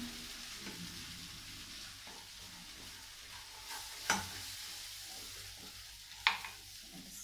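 Béchamel sauce of butter, starch and milk sizzling steadily in a frying pan on a gas flame as milk is poured in a little at a time and stirred with a wooden spoon. Two sharp knocks stand out, about four and six seconds in.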